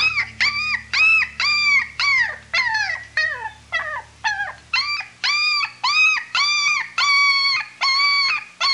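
An animal calling in a rapid run of short, high, yelping calls, about two a second, each call rising and then falling in pitch.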